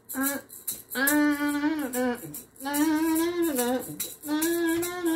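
A voice singing three long held notes, each about a second, over the quick rattle of a hand-shaken maraca.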